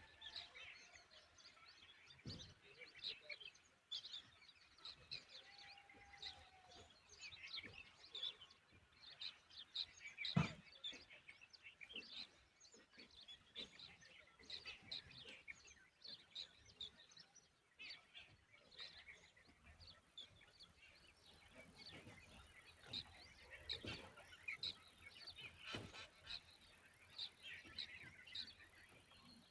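Faint, frequent high chirps of small birds, with a single sharp knock about ten seconds in.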